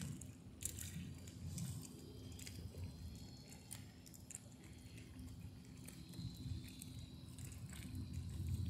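Quiet sounds of a canoe being paddled: soft water swishes and drips from the paddle, with scattered small clicks and knocks.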